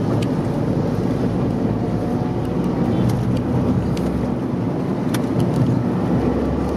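Tata Tiago's 1.2-litre three-cylinder petrol engine pulling under throttle, mixed with steady road and tyre noise, heard from inside the car.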